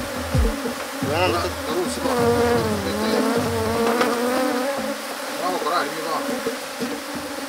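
Honeybees buzzing in numbers around an opened hive, disturbed by the hive being opened for the honey harvest. Bees flying close by make the buzz waver up and down in pitch, most in the first half.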